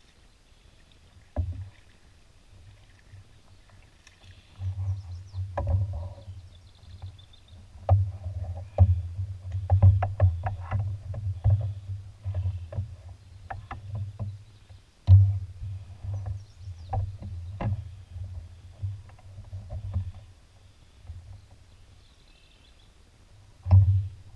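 Choppy water slapping and knocking against the hull of an Old Town Next canoe, in irregular low bursts with sharp knocks. There is one knock about a second and a half in, a long stretch of slapping through the middle, and another burst near the end.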